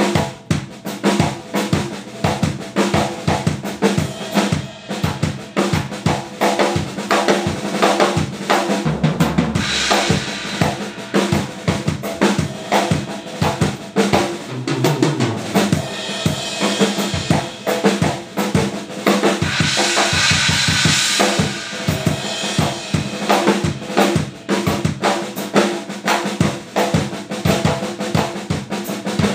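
A close-miked drum kit played solo in a New Orleans–style groove: busy snare and rimshot strokes over bass drum, with a drum roll. Cymbals ring out briefly about ten seconds in and again for several seconds from about sixteen seconds.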